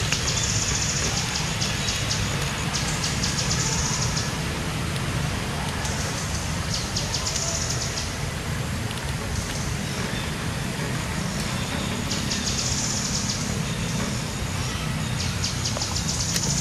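Forest ambience: insects chirring at a high pitch in repeated bouts of a few seconds, over a steady low rumble.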